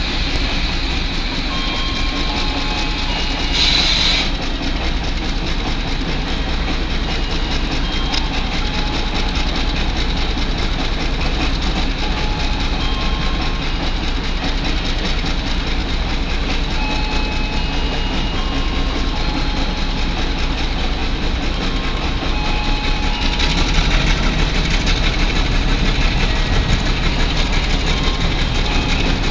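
Double-headed BB304 diesel-hydraulic locomotives running at low throttle, a steady low engine rumble, as the train creeps slowly past the platform. There is a brief hiss about four seconds in, and the engine sound grows louder about two-thirds of the way through.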